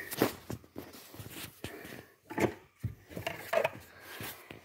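Handling noise from a phone being moved about, with rustling and a series of irregular knocks and clicks.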